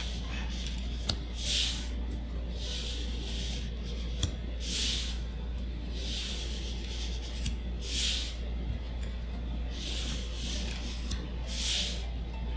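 Trading cards being slid one by one off a stack as a booster pack is looked through. Each card gives a short papery swish, about one every second and a half, with two sharp little clicks of card on card or on the table.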